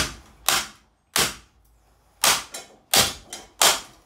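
Hammer blows striking a Lanson ceiling fan: six sharp knocks, mostly about two-thirds of a second apart, with a longer gap of about a second near the middle.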